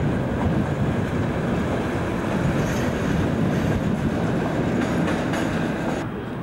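Class 37 diesel locomotive passing slowly, its engine running with a steady sound together with the noise of its wheels on the rails. The sound drops in level near the end.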